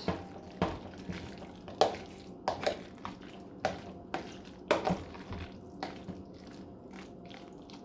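A spoon mixing a mayonnaise-dressed chicken salad in a bowl, with irregular wet squishes and short clicks of the utensil against the bowl.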